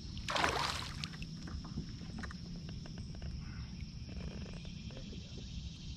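A hooked bass splashes briefly at the surface about half a second in, followed by light scattered ticks and clicks over a steady high hum.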